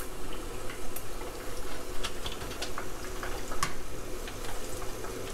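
Hot oil bubbling and crackling around chicken pieces deep-frying in a pot, with scattered sharp pops through the steady bubbling.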